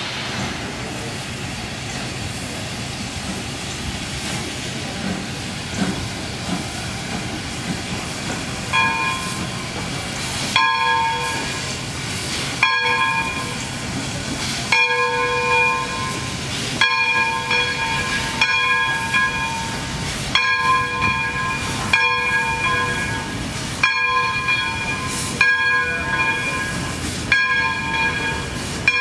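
0-6-0 steam locomotive hissing steam. About nine seconds in, its bell starts ringing, one clang about every two seconds.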